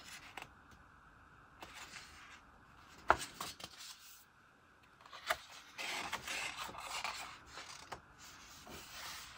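Paper pages of a booklet being turned and handled by hand: a sharp paper snap about three seconds in, then a few seconds of paper rubbing and rustling.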